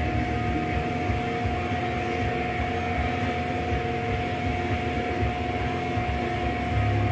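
Background music with a sustained droning tone held steady, no beat standing out.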